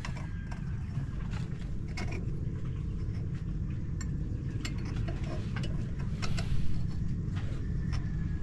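A boat's engine running steadily as a low rumble, with scattered light clicks and taps from parts being handled.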